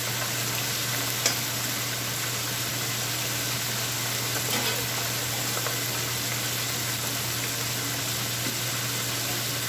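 Thin-cut chicken breast deep-frying in an electric deep fryer: a steady sizzle of bubbling oil over a low hum, with a single sharp click about a second in.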